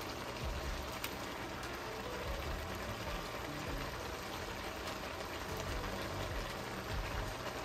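Soup liquid simmering in a Dutch oven, a steady bubbling hiss with a few faint light clicks.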